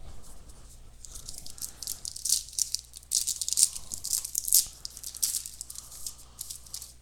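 Baseball trading cards rustling and flicking as they are handled and flipped through, in quick irregular bursts of crisp, high-pitched rustling that start about a second in.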